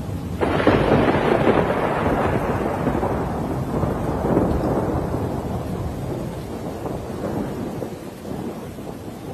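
A thunderclap breaks about half a second in and rumbles on, slowly fading over the next several seconds, over the steady noise of heavy rain.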